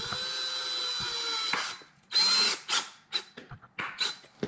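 Cordless drill-driver driving a screw into a table leg: the motor runs steadily for about a second and a half and stops, then follows with about six short trigger bursts.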